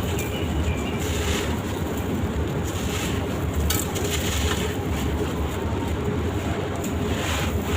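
Gritty sand-cement shapes being crumbled and crushed: a continuous grainy crunching over a steady low rumble, with scattered crackles.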